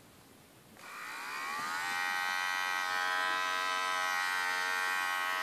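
Remington HC5800 cordless hair clipper switched on about a second in: its motor buzz glides slightly lower in pitch over the first second, then runs steadily.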